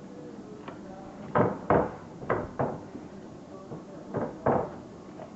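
Six dull thumps in three pairs: a freshly contact-cemented sole being pressed and pounded down onto a sandal's cork footbed to set the bond.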